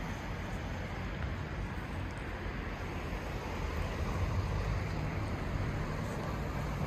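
Steady road traffic noise with an uneven low rumble underneath.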